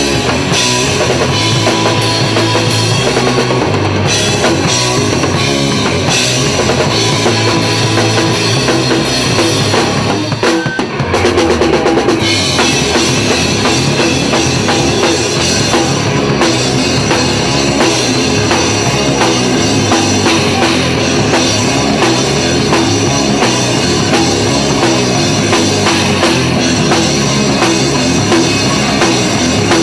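Live rock band playing loud, amplified electric guitars over a full drum kit with a steady beat, with a brief break about ten seconds in before the band comes back in.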